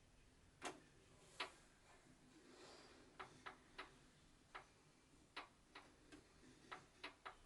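Faint, irregular clicks and ticks, about a dozen at uneven spacing, from a Singer 8280 sewing machine's mechanism being worked.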